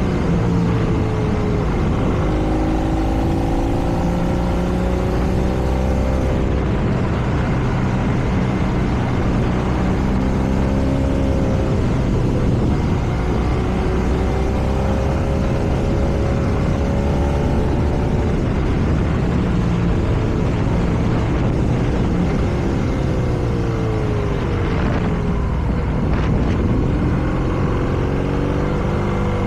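BMW R nineT's air/oil-cooled boxer twin pulling through the gears on a winding road. Revs rise, drop back and rise again several times, under steady wind and tyre noise.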